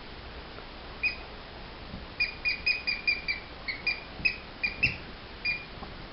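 A squeaky dog toy squeezed again and again: about a dozen short, high squeaks of the same pitch, the first alone about a second in and the rest coming quickly after.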